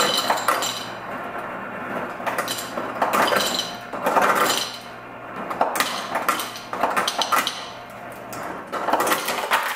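Refrigerator door ice dispenser dropping ice cubes into a glass jar: a stream of clattering and clinking over a low motor hum, which stops near the end.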